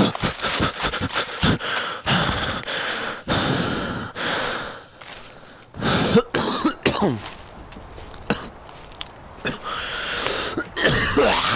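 A person making wordless noises: coughing and breathy, hissing sounds with clicks, then short cries that fall in pitch about six to seven seconds in and again near the end.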